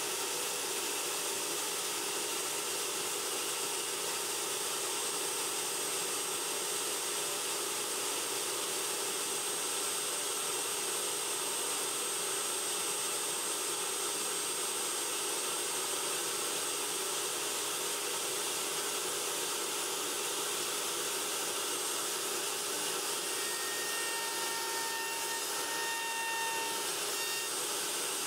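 Table-mounted router running steadily at full speed, its bit cutting slots into the end of a wooden board clamped to a jig carriage. A few faint whining tones come and go near the end.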